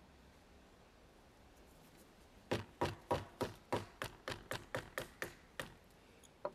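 A wooden baton striking the spine of a bushcraft knife to drive it down through a small round of wood, splitting it. About a dozen sharp knocks come about three a second from about two and a half seconds in, loudest at first and growing fainter, with one more near the end.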